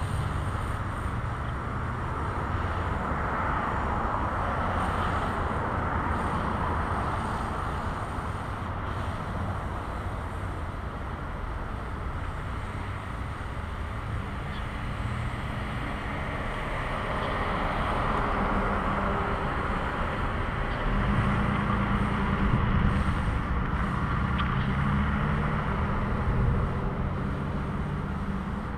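Road traffic passing: continuous tyre noise that swells and fades as vehicles go by, with a heavier engine hum in the last third.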